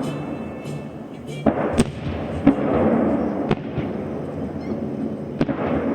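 Salute fireworks bursting overhead: about five sharp bangs spread across a few seconds, over a continuous crowd and music background.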